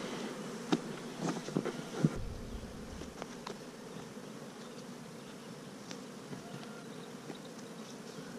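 Many honey bees buzzing in the air around the hives, a steady hum. The beekeeper takes this heavy flight traffic for peak-season foraging rather than robbing. A few light clicks and a soft low thump come in the first two seconds or so.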